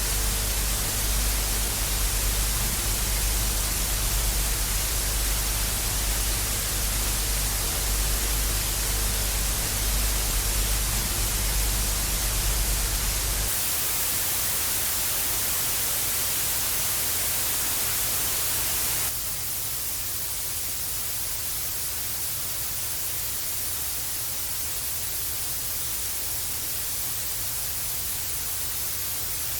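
Television static: a steady hiss with a low hum under it, which about halfway through gives way to a brighter, hum-free hiss, then turns a little quieter about two-thirds of the way in.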